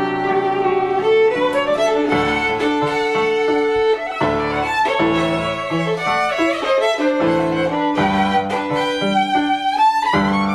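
Violin playing a melody with slides in pitch, over low piano chords that come in every second or two.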